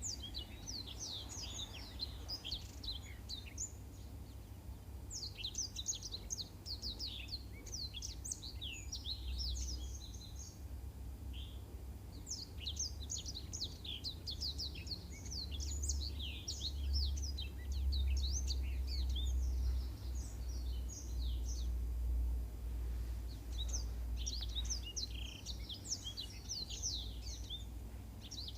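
Blackthroat (black-throated canary) singing long phrases of fast, high twittering chirps, with short pauses about 4, 11 and 22 seconds in. A steady low rumble runs underneath.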